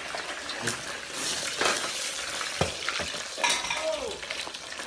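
Crackling and sizzling of flames on a stovetop, a steady hiss broken by several sharp pops.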